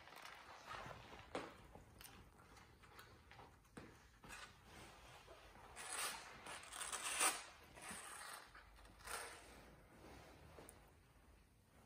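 Quiet eating and handling sounds: a plastic fork scraping and scooping chili cheese fries in a paper tray, mixed with rustling of a nylon jacket. The sounds come in short, scattered bursts and are loudest in a cluster about six to seven seconds in.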